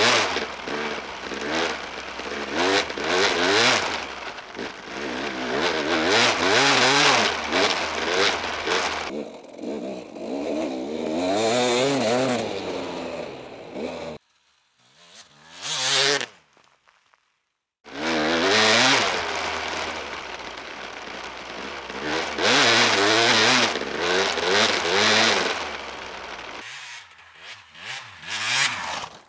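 KTM 250 EXC two-stroke enduro motorcycle engine revving up and down under throttle as the bike is ridden, its pitch rising and falling. It cuts out for a few seconds midway, broken by one short rev, and is fainter near the end.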